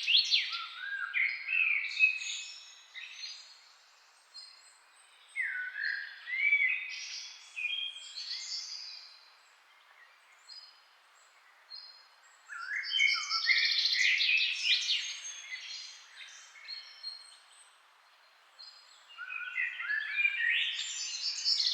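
Songbirds singing: four bouts of quick trills and gliding chirps, separated by short quiet gaps.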